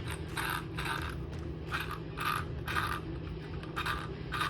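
Gear train of an Arrma Mega Typhon RC car being turned over, the new metal gear meshing with a scraping grind in short repeated strokes, about two a second. It sounds a little weird, which the owner puts down to the gear being metal on metal rather than plastic.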